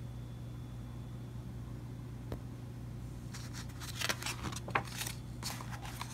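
A single light click, then a book's paper page being turned: about three seconds of crinkly rustling over a steady low hum.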